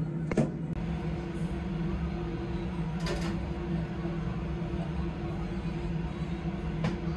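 A steady low mechanical hum with a few short clicks.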